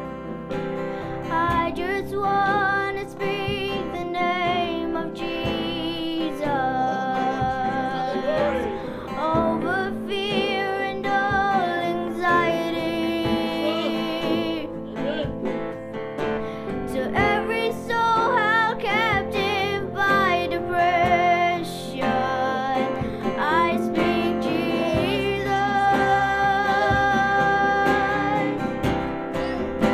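Young girls singing together into microphones, accompanied by an acoustic guitar.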